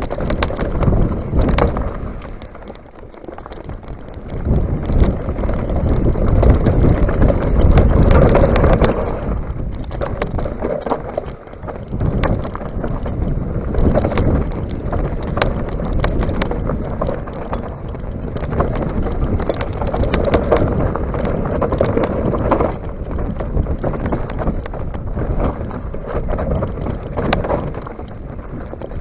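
Mountain bike descending a rocky, gravelly singletrack: wind rushing over the camera microphone, with tyres rolling over loose stones and frequent clicks and clatters from the bike jolting over rocks. The noise eases briefly about three seconds in and again near twelve seconds.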